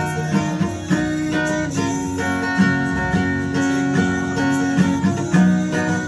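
Steel-string acoustic guitar played in a steady rhythm, chords ringing under regular strokes on the strings.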